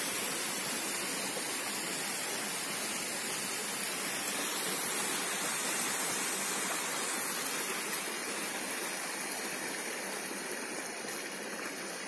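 Steady rushing of water from a small rocky mountain stream and a waterfall, a little quieter over the last few seconds.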